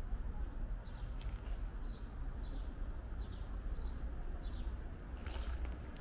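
A bird chirping over and over, short high chirps coming roughly every 0.7 seconds, over a steady low rumble.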